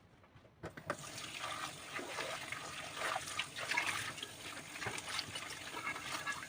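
Water running from a kitchen tap, starting about half a second in, with small clicks and knocks through the flow.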